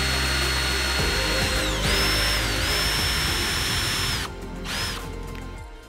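Cordless drill with a 3 mm bit drilling out a hole in a speargun reel bracket. The motor whine dips briefly about two seconds in and runs on, stops about four seconds in, then comes back for a short burst of the trigger. Background music plays underneath.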